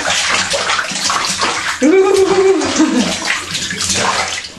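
Bathwater splashing and sloshing in a bathtub as a baby moves and slaps at the water. About two seconds in, a baby's drawn-out vocal sound lasts about a second and drops in pitch at its end.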